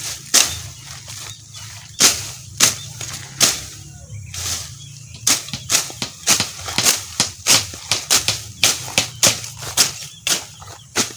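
Hand sickle slashing through green grass and weeds, each stroke a sharp swish. The strokes come a few at a time at first, then quicken to about three a second from about five seconds in.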